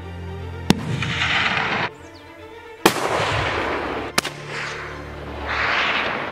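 Three sharp bangs, each followed by about a second of loud rushing noise that stops abruptly, over background music.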